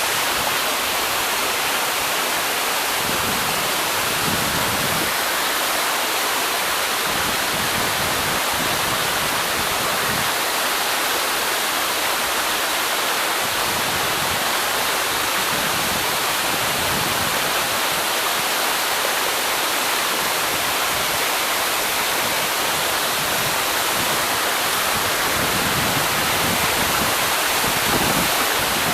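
Waterfall: water falling over rocks, a steady, unbroken rush of noise.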